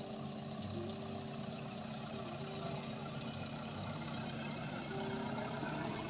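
Toyota Hilux 4x4 pickup's engine running steadily as the loaded truck crawls along a steep dirt slope.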